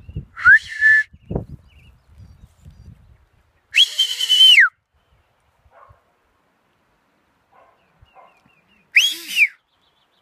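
A shepherd's whistled commands to a working sheepdog: three sharp, loud whistles. The first rises and then holds, the second about four seconds in holds high and then falls away, and the third near the end rises and falls quickly.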